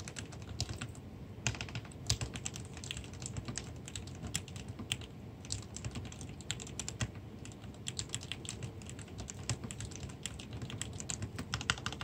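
Typing on an aluminium-cased mechanical keyboard (Acon Real DX) with lubed Cherry MX RGB Black linear switches: a fast, uneven run of keystrokes.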